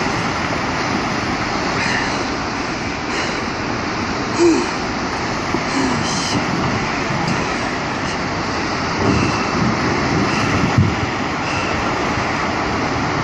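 Tsunami surge: churning seawater rushing over a rocky shoreline, a steady rumbling rush of water that goes on without a break.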